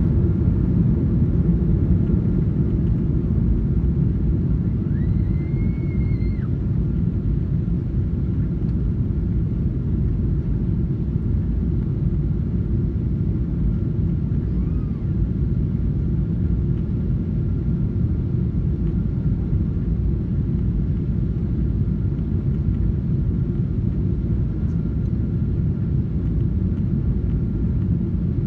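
Steady, deep cabin rumble of a Boeing 777-300ER climbing out just after takeoff: its GE90 engines and the rush of air past the fuselage, heard from a seat by the wing.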